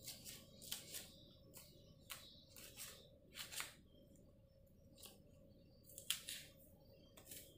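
Kitchen knife slicing crisp green beans against a wooden cutting board: about a dozen short, sharp cuts at an uneven pace, with a pause a little before the middle.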